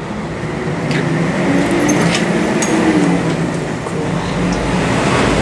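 Steady low hum of motor traffic or an idling engine, with a few faint clicks.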